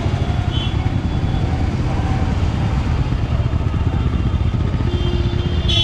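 Motorcycle engine running steadily as the bike rolls slowly through street traffic, with a short high-pitched tone near the end.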